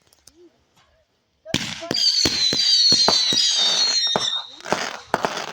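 Consumer fireworks going off. After a short lull, a rapid string of sharp bangs comes with crackling and a high whistle that falls slightly in pitch over about two seconds, and a few more cracks follow near the end.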